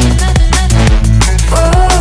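Background pop song with a steady electronic beat and heavy bass, between sung lines.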